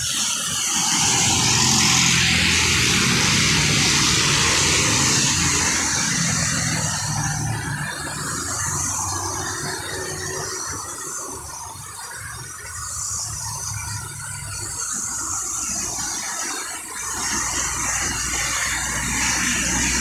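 Road traffic on a wet road: cars and motorcycles passing, their tyres hissing on the wet asphalt over low engine hum. The sound swells as vehicles go by, is loudest in the first few seconds, eases off in the middle and builds again near the end.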